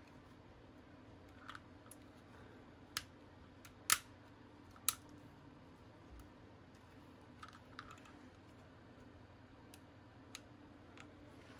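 Scattered light clicks of small metal parts in a CZ P-07 pistol's polymer frame as the trigger bar, ejector and springs are pressed and fitted into place by hand. About seven sharp clicks at uneven intervals, the sharpest about four seconds in.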